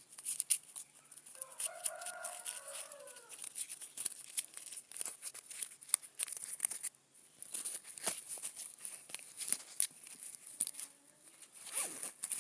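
Crinkling and clicking of plastic packaging being handled, with a drawn-out animal call of about two seconds starting about a second and a half in.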